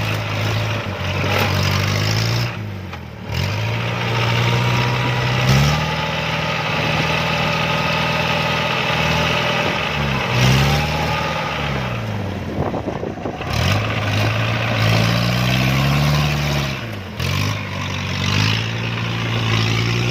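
Diesel engine of a tracked rice harvesting machine working in deep mud, its pitch rising and falling again and again as the engine is revved up and eased off.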